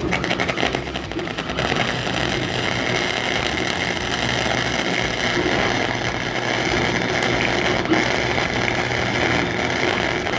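Wire-feed welder arc crackling steadily as a bead is run along the joint between a steel tube and a plate. The arc is struck right at the start and burns without a break.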